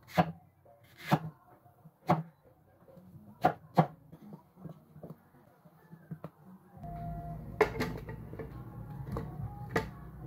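Knife chopping peeled taro on a wooden chopping board: five sharp chops in the first four seconds. From about seven seconds in, a steady low hum comes in, with a few scattered knocks.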